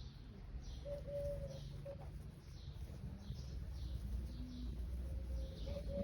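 Birds calling: short cooing notes and a run of repeated high chirps about twice a second, over a steady low rumble.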